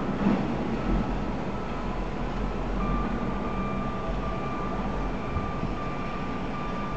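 Heavy port machinery engine running steadily, with a faint steady whine coming in about three seconds in.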